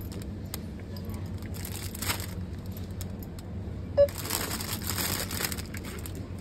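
A handheld self-scan shopping scanner gives one short beep a little past the middle as a bag of salad is scanned, with plastic salad bags crinkling as they are handled. A steady low store hum runs underneath.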